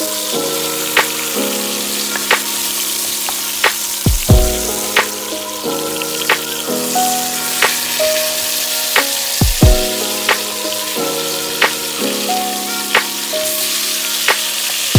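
Food frying in oil in a pan, a steady sizzle, under background music with a regular beat.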